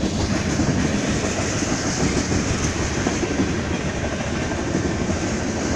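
Freight cars of a BNSF train rolling past: boxcars and lumber-loaded flatcars. Their steel wheels make a steady rumble and clatter on the rails.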